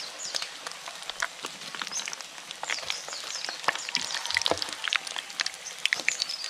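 Battered frog pieces deep-frying in foaming hot oil in a wok, with a steady irregular crackling and popping.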